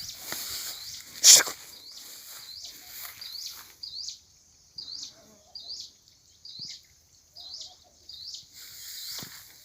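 Repeated high-pitched chirping, about two chirps a second, with a single sharp click a little over a second in.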